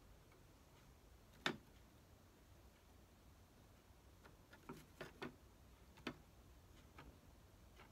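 Near silence broken by a few faint clicks and taps from hand-gluing a miniature wooden wall frame with a small glue bottle: one sharper click about a second and a half in, then a cluster of lighter taps between about four and a half and seven seconds in.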